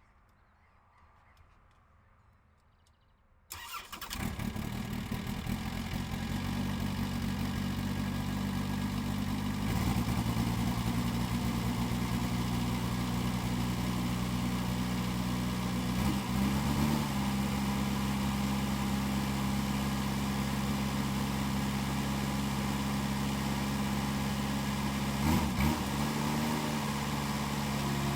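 Case 550G bulldozer's diesel engine starting about three and a half seconds in, catching at once and then running steadily, a little louder from about ten seconds in.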